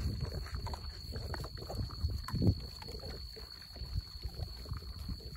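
A herd of collared peccaries (javelinas) foraging, with irregular low grunts and snuffles; the loudest is about two and a half seconds in.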